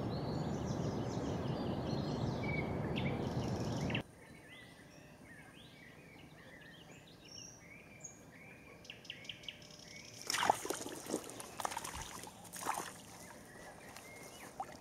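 Small birds chirping and singing, at first under a loud low rumble of wind on the microphone that cuts off abruptly about four seconds in. From about ten seconds there is a run of sharp knocks and rustles.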